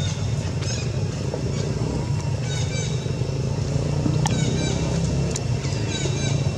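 A steady low motor rumble, like a vehicle engine running nearby, with short high chirps falling in pitch every second or two.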